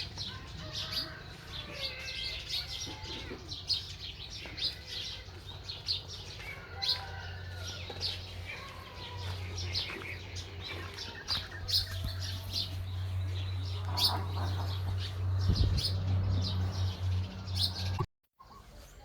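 Many short, high-pitched animal chirps and squeaks, close together, over a steady low hum that grows stronger about halfway through; the sound cuts out completely for a moment near the end.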